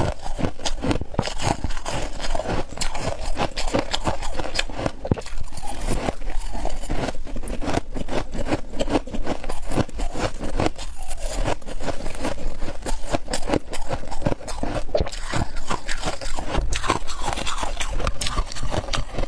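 Packed frost being dug into and crunched: a dense, continuous run of sharp squeaky crunches and crackles.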